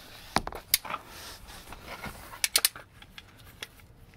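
Handling noise: a handful of sharp clicks and taps with light rustling, including a quick run of three clicks about halfway through.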